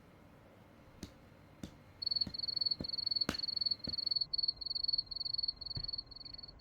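Cricket chirping sound effect: a high, thin trill in short pulses, about three or four a second, starting about two seconds in. A few faint clicks come before it.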